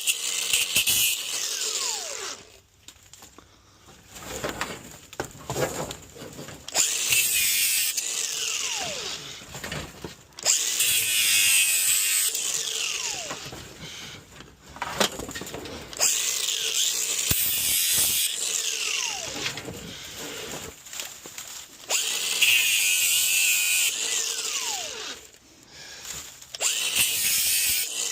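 Power tool cutting into a stainless steel garden hose in repeated bursts of a few seconds each. Between cuts the motor's pitch falls as it spins down.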